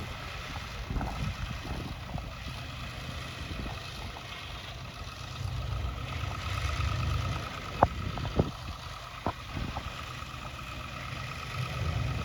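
Snowplow truck engine running with a low rumble that swells twice, under a faint steady whine. A few sharp clicks or knocks come about eight and nine seconds in.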